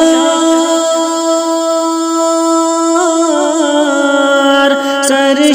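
Naat singing: a voice holding one long, slightly wavering note, with a short ornamented turn about three seconds in before it settles into another long held note.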